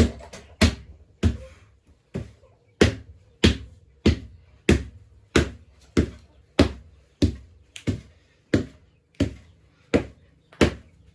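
Rhythmic thuds of wet mud or clay being beaten and patted down while building a kitchen hearth, about three blows every two seconds with a brief pause near the start.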